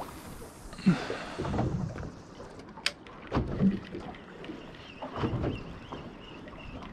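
Small boat on the water, with water slapping the hull in irregular low knocks about every second or two. A single sharp click comes about three seconds in.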